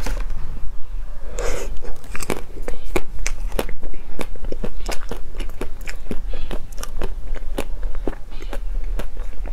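Close-miked crunching of a frozen ice-cream bar's hard coating being bitten and chewed: a quick, uneven run of crisp cracks.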